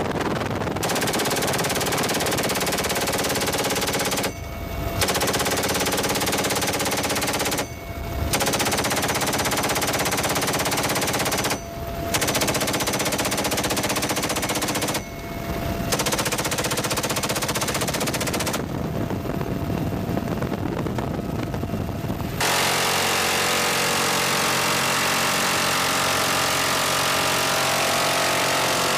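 Helicopter door-mounted machine gun firing long bursts, each about three to four seconds with short pauses between, over the steady running of the helicopter. From about two-thirds of the way in, the firing gives way to the helicopter's steady engine whine and rotor hum.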